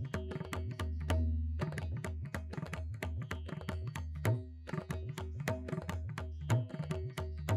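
Background music: an Indian instrumental led by tabla playing quick strokes over a steady drone, with brief pauses between phrases.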